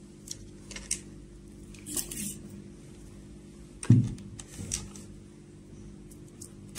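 Handling noise from a plastic RC radio transmitter and its connect cable on a table: scattered light clicks and rustles, with one louder knock about four seconds in as the transmitter is tipped onto its side. A low steady hum runs underneath.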